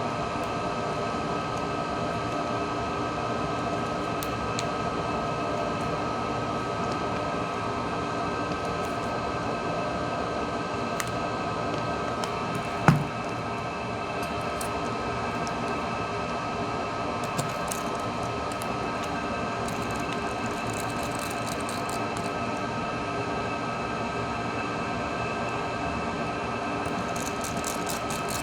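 Small scattered clicks and taps of a screwdriver and tiny screws as a smartphone's internal parts are screwed back in, with one louder knock about halfway through. Under them runs a steady hum with several held tones.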